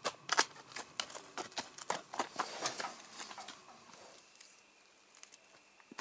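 A donkey's hooves stepping and scraping on stony, gravelly ground. It is a busy run of sharp clicks and crunches that thins out after about four seconds to a few scattered ones.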